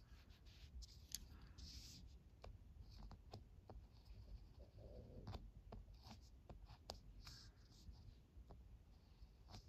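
Ballpoint pen writing on paper: faint, short scratches and ticks as the tip draws individual kanji strokes, stopping and starting irregularly.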